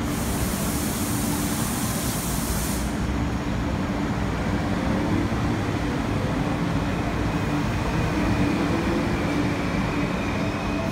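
MTR East Rail Line MLR electric train pulling out of the platform: a steady loud rumble of wheels and running gear, with faint motor tones rising slowly as it gathers speed. A high hiss sounds for the first three seconds, then stops.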